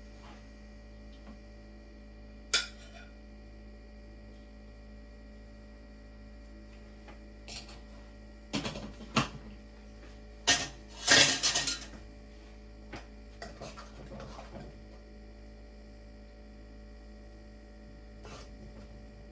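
Metal serving spoon clinking and scraping against cooking pots and a plate as food is dished out: scattered clinks, with the loudest cluster of scrapes about eleven seconds in. A steady faint hum runs underneath.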